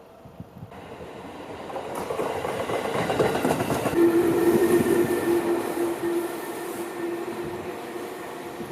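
Seibu Ikebukuro Line electric train passing, the noise building up, loudest about midway and then easing, with many short knocks. A steady whine runs for about three seconds in the middle of the pass.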